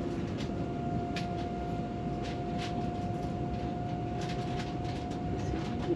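Cabin running noise of a Siemens Velaro TR high-speed train heard from inside a passenger car: a steady rumble with a steady high whine over it and scattered short clicks.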